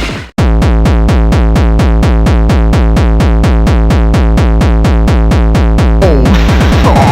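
Hardcore gabba-style electronic music: after a brief cut to silence, a very fast, heavy kick drum beat runs at about five strokes a second, with a pitch-sliding synth sound and a change in the beat near the end.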